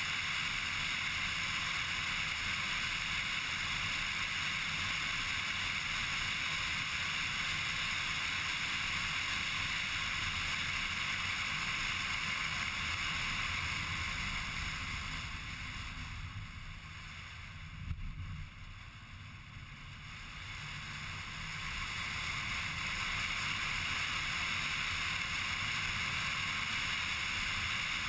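Steady tyre and wind noise of a car driving, heard from inside the car. Around the middle the noise drops for several seconds, with a single knock, then comes back up.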